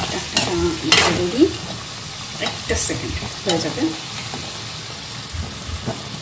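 A metal spoon stirring and tossing sauce-coated fried chicken wings and onions in a hot pan, scraping and clicking against the pan several times, over a low steady sizzle. The strokes are busiest in the first few seconds and ease off toward the end.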